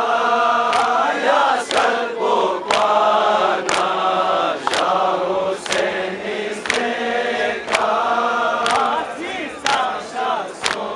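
Men's voices chanting a Balti noha, a Shia mourning lament, together. A sharp slap of hands beating on chests (matam) falls about once a second, keeping time.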